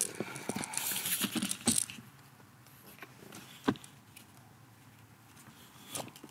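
Plastic trim pry tools being handled: a flurry of light clattering and clicking, then quieter, with a single sharp click a little past halfway and another near the end.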